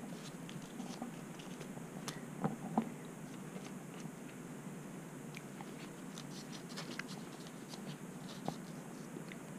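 Faint crinkling and rustling of gum wrappers being pulled open by hand, with scattered light ticks and a couple of slightly louder clicks about two and a half seconds in.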